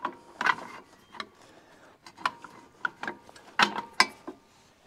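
Steel hitch pin clicking and knocking against a quick-hitch bracket and tractor lower link arm as it is worked into the holes: a series of sharp metal clicks, some with a short ring, the loudest a little before the end.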